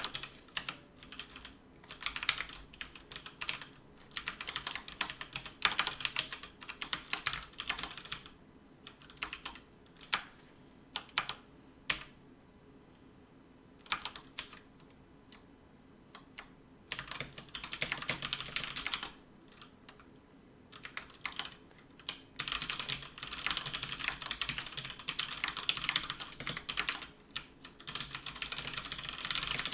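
Fast typing on a computer keyboard, keys clattering in quick bursts with pauses of a second or two, then running on without a break through the last several seconds.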